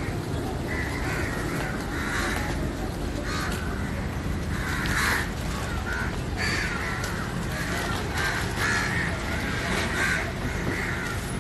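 Several crows cawing over and over, their short calls overlapping.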